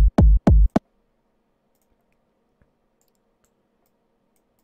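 Techno kick drum sample extracted from a loop, with the loop's hum removed, hit over and over at about four beats a second. It cuts off abruptly within the first second. After that there is only a faint steady hum and a single soft click, like a mouse click.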